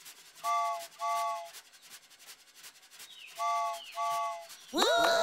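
Cartoon steam-train whistle sounding two short chord toots, then after a pause two more, with faint chuffing between. A character's voice starts near the end.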